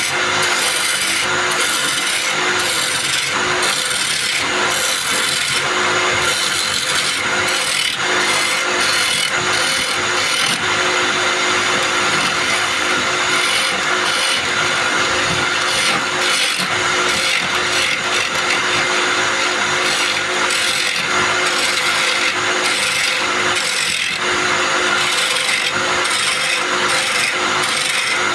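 Wood lathe running, with a turning chisel cutting into the spinning wood: a steady motor hum under a scraping, shaving sound that comes and goes as the tool is worked.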